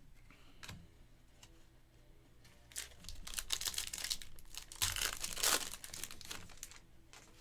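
Foil trading-card pack wrapper being torn open and crinkled, after a few light clicks.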